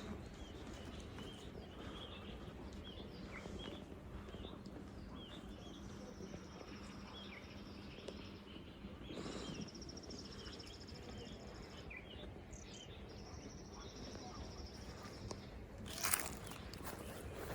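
Outdoor ambience with small birds chirping in short repeated notes, and three long, high, buzzing trills in between. A brief louder rustle or clatter comes near the end.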